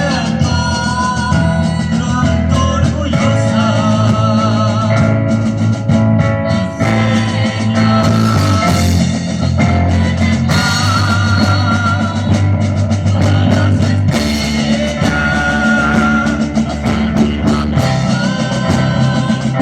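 Rock music with guitar and a steady bass line, under a wavering lead melody.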